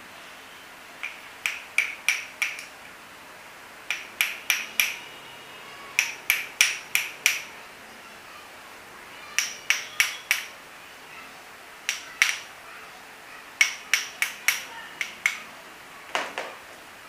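Light hammer taps driving a permanent magnet into its slot in an e-rickshaw motor's rotor core, seating it so that it grips firmly in place. The taps come in quick bursts of three to six, each a sharp tap with a short bright ring, with pauses of a second or two between bursts.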